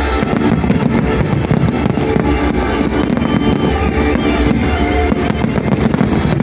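Music playing with fireworks going off in a rapid, continuous string of bangs and crackles.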